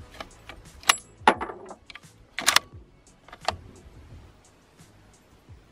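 Sharp metallic clicks and clacks of a scoped, wooden-stocked bolt-action rifle being handled at its action, a few at a time, the loudest about a second in and around two and a half seconds.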